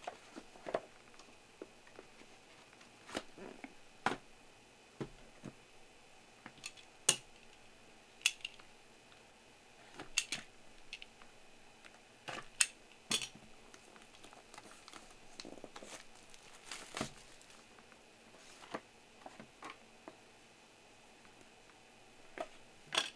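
Sealed trading-card box packaging being handled and opened by hand: scattered sharp clicks and taps with light crinkling of wrapper and cardboard, about one every second or two.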